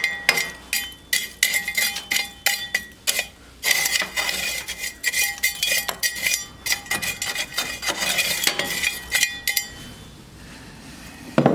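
Rapid, irregular metallic clinking and scraping, with a hard metal object ringing each time it is struck, stopping near the end with one dull thump.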